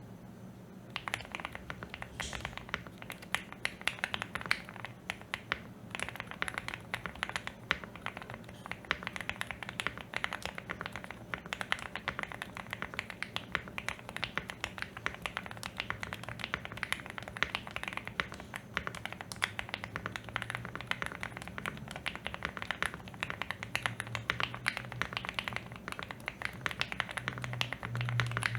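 Continuous fast typing on a Shortcut Studio Bridge75 PLUS mechanical keyboard with Gateron Snow Rabbit switches, stock stabilizers and stock keycaps: a dense stream of key clicks, starting about a second in.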